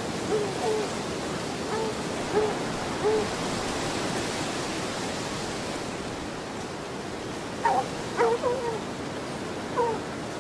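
A dog barking and baying at a treed cougar: short calls in the first few seconds, a pause, then a burst of higher, rising yelps near the end, over a steady hiss.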